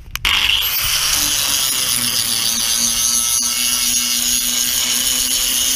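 Angle grinder starting up about a quarter second in and running steadily with a high whine, its cleaning disc scouring rust off a steel rubbing strake.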